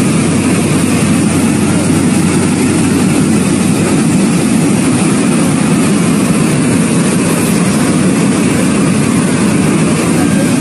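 Loud, steady rushing roar of liquefied mine waste surging past in a fast flow after a waste dam breach.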